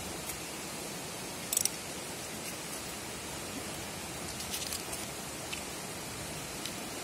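Steady rushing hiss, with a few brief crisp crackles about one and a half seconds in and a small cluster of them around four and a half seconds, as the layers of a peeled onion are pulled apart by hand.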